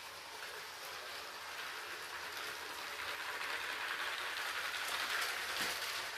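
Motorised brick-built model train, a modified Bluebrixx ET 420 multiple unit, rolling along plastic track with a steady rolling noise and faint ticks. It grows louder to a peak about five seconds in as it passes close by.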